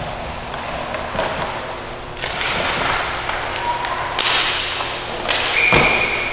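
Roller hockey play: sticks slapping and scraping the sport-court floor and the puck being hit in a scramble, several sharp swishing slaps. About five and a half seconds in, a referee's whistle blows one steady note for a little over a second, stopping play.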